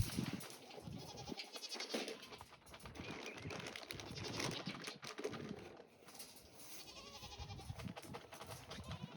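Nigerian Dwarf goats bleating several times, high and wavering, over small clicks and rustling.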